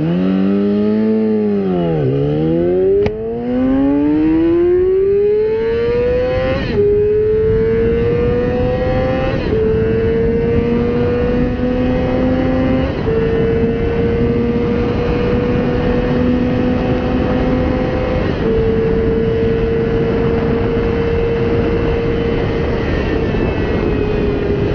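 Yamaha R6 600cc inline-four sport bike accelerating hard through the gears: the engine note climbs high, then drops back at each of about five upshifts, and each gear climbs more slowly as the bike nears top speed. A steady rush of wind and road noise runs underneath.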